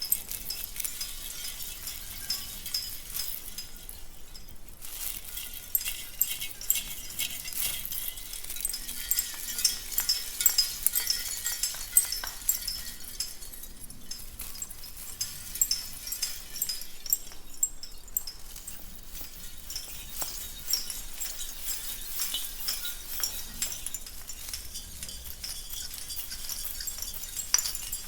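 Christmas tree ornaments clinking and tinkling against one another: a continuous patter of small, bright, high-pitched clinks with a few brief lulls.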